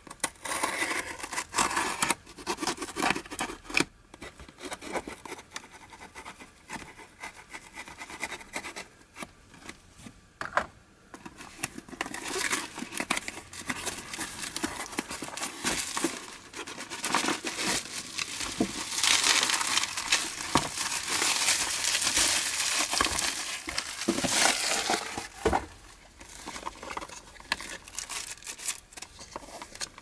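A parcel being unwrapped: a craft knife scratching through packing tape, then the cardboard box opened and bubble wrap crinkling and rustling. The crinkling is loudest and most continuous in the middle stretch.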